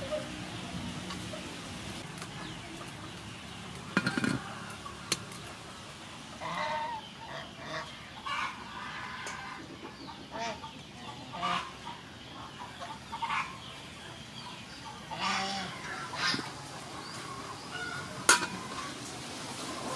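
Chickens calling on and off, with a few sharp clicks or knocks, the loudest one near the end.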